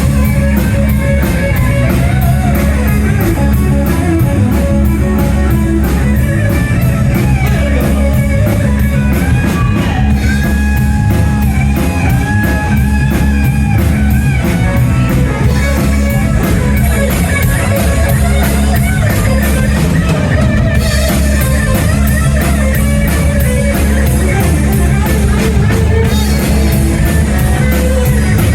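Live rock band playing, with guitar leading over drums and bass and a steady cymbal beat.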